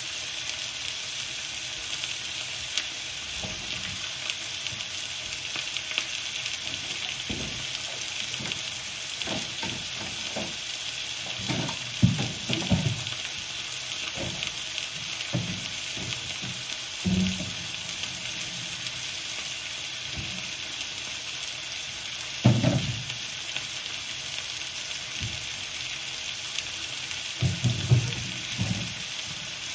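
Potatoes frying in a pan, a steady sizzle, with a few knocks and clunks of groceries being put into a fridge.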